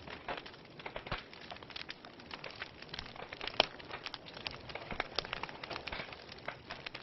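Wood logs burning in a fireplace, crackling with irregular pops and snaps over a soft hiss; one sharper pop stands out about halfway through.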